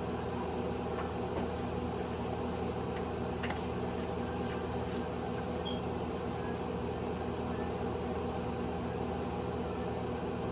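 A steady mechanical hum, unchanging throughout, with a few faint light clicks over it.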